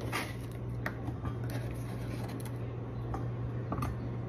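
A few light knife taps and handling clicks on a plastic cutting board while bitter melon is sliced, over a steady low hum.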